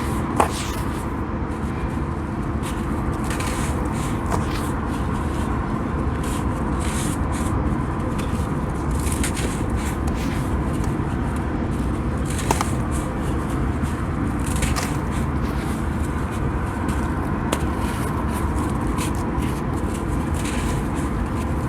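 Crispy dried sand crumbling and being crushed, making irregular gritty crackles, with a sharp click about half a second in. A steady low noise and faint hum run underneath.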